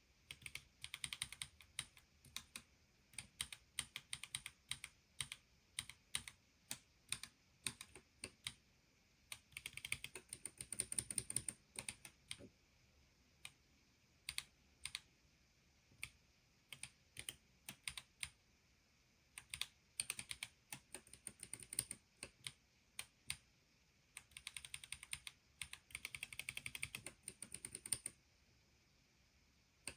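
Keys of an Ergo Split keyboard being typed on while editing text: scattered single keystrokes with pauses between them, broken twice by quick runs of rapid typing.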